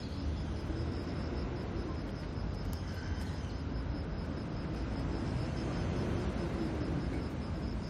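Outdoor ambience: an insect chirping in a steady, rapid pulse, high-pitched, over a low steady rumble.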